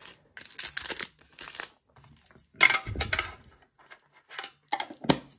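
Plastic shrink-wrap on a Shining Fates mini tin crinkling and tearing in irregular bursts as it is picked and peeled off, the loudest crackle about halfway through. A sharp click near the end.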